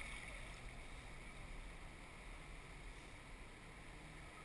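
Faint, steady rush of river water around a drifting kayak, with the distant flow of a small weir, heard through a muffled action-camera housing.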